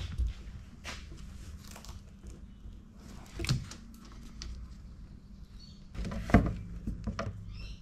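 Scattered light clicks, knocks and scrapes of hands and a thin pry tool working at the edge of a car's window glass and its seal, the loudest a knock about six seconds in, over a low steady hum.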